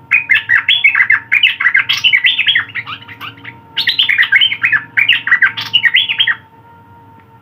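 A songbird singing two long bouts of rapid, varied chirping phrases, with a short break between them, over a faint steady hum.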